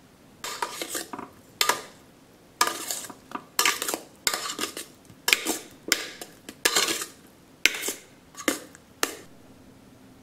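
A utensil stirring boiled taro cakes in a stainless steel colander, scraping and clinking against the steel in about ten short bursts, to coat the cakes with oil so they do not stick. The stirring stops about nine seconds in.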